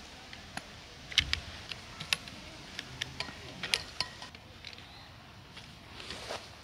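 Irregular sharp clicks and taps of camping gear being handled while a tarp shelter is pitched, the loudest a little after a second in and again around two seconds in.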